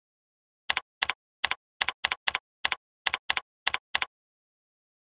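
Computer keyboard typing: about eleven crisp key clicks, each a quick double tap, over roughly three seconds, then stopping about four seconds in.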